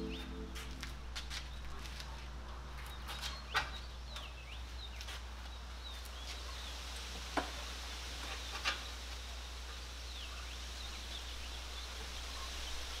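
Quiet outdoor ambience with small birds chirping faintly, broken by three short sharp clicks, and background music fading out about a second in.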